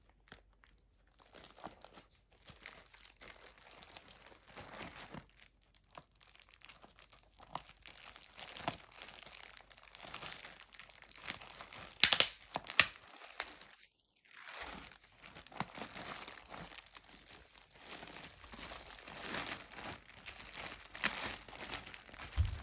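Laptop packaging crinkling and rustling as it is handled and unwrapped, with a few sharp clicks about halfway through.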